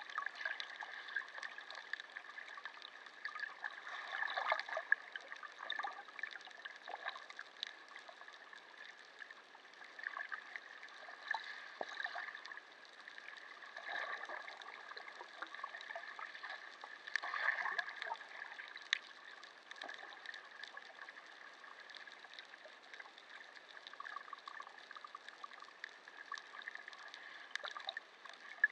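Underwater bubbling and gurgling from snorkellers moving in the water, heard through a submerged camera, with a steady faint hum underneath. It comes in irregular crackly swells, louder around a quarter and again around half to two-thirds of the way through.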